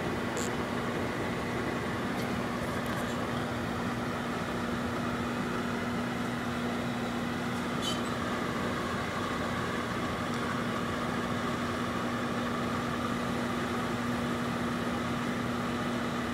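Microwave oven running with an apple inside, a steady hum with a constant low tone, with a couple of faint ticks.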